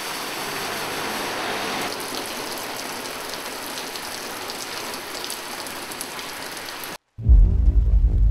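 A steady rushing hiss, like rain, with faint scattered ticks, a little louder in the first two seconds. About seven seconds in it cuts off, and music with a deep bass starts.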